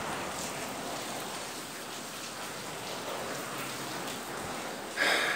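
Steady rain falling, an even hiss, with a short loud burst of noise just before the end.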